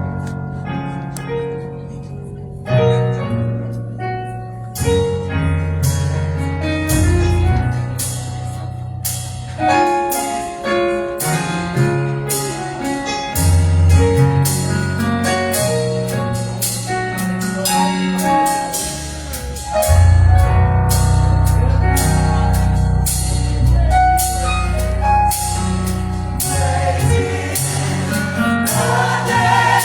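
Gospel band playing an instrumental lead-in: keyboard chords over a heavy bass line, with drums coming in and the groove building. Voices start to come in near the end.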